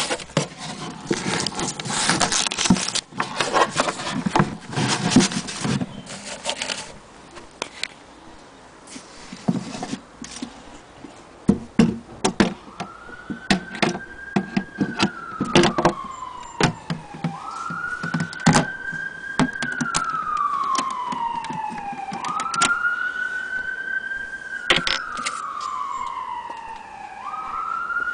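Rustling and knocking from handling an old paper manual and a wooden case for the first several seconds. From about halfway, a siren wails in slow cycles: it rises quickly, holds, then slides down over about three seconds, repeating about every five seconds.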